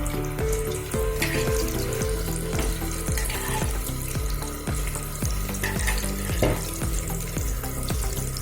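Boiled eggs, scored and rubbed with salt and red chilli powder, sizzling steadily in hot oil in a kadai, with soft background music over the top.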